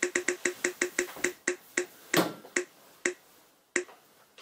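Ticking of a spin-the-wheel app on a phone as its wheel turns, the clicks slowing steadily from several a second to about one every half second as the wheel coasts toward a stop. A brief louder noise comes about two seconds in.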